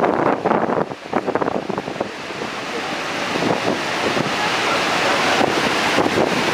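Wind buffeting the microphone over the rushing water and spray of Niagara Falls, seen close up from a tour boat. It is gusty at first, then from about two seconds in it settles into a steadier, fuller rush.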